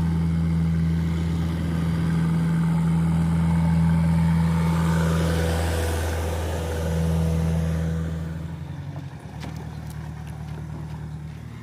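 JCB 3DX backhoe loader's diesel engine running with a steady low drone, easing off to a quieter run about eight seconds in.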